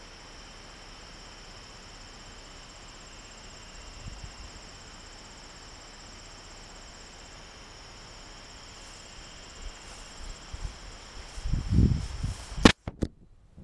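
Chorus of singing insects: steady high-pitched trilling at several pitches, the highest pulsing rapidly. Near the end there is low rumbling handling noise on the microphone, then a sharp click and the sound drops out.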